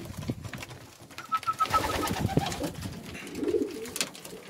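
Homing pigeons feeding at a wooden trough, beaks tapping and clicking on the grain and wood, with pigeons cooing in the loft. A brief high, rapidly pulsing peep sounds about a second in.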